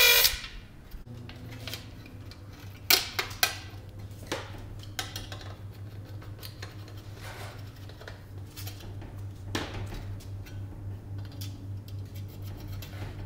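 Hand tools clinking and tapping against aluminium engine baffles, with a few sharp metallic clicks over a steady low hum.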